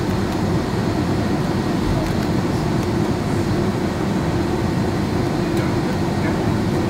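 Steady cabin noise of a Boeing 757-200 taxiing, heard from a seat over the wing: its Rolls-Royce RB211 turbofans running at low taxi thrust as an even rumble and hum.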